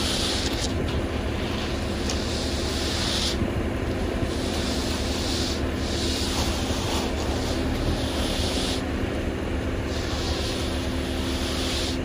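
Concrete agitator truck's engine running with a steady drone, with a hiss that swells and fades every couple of seconds over it.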